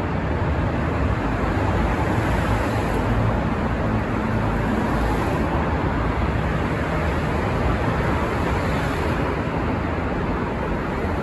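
Steady noise of road traffic echoing in a road tunnel, swelling a few times as vehicles pass.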